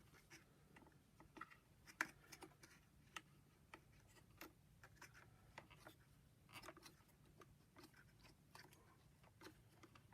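Near silence with faint, scattered clicks and taps of the carpet cleaner's plastic parts being handled, the sharpest about two seconds in.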